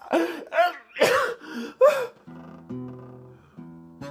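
A person sneezing and gasping in a quick series of sharp bursts. About two seconds in, an acoustic guitar comes in with a few chords, the opening of a blues song.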